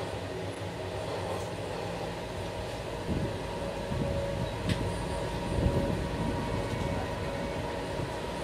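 Wind buffeting the microphone: a steady rumble with stronger gusts around the middle.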